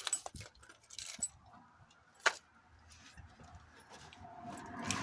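A scatter of light clicks and metallic clinks, like small objects or keys being handled, with one sharper click a little after two seconds. A low rushing noise builds near the end.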